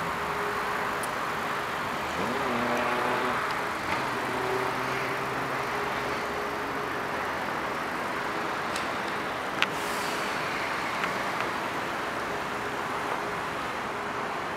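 Steady road-traffic noise, with a vehicle's engine note rising and falling about two to three seconds in and a single sharp click about ten seconds in.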